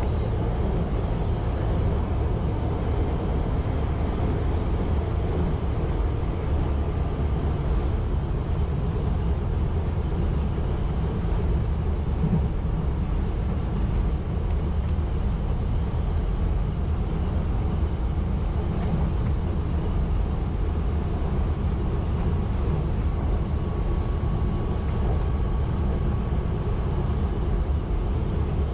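1920s CPH railmotor running along the line: a steady low engine drone and rumble of wheels on the track, with a faint thin whine coming in about two-thirds of the way through.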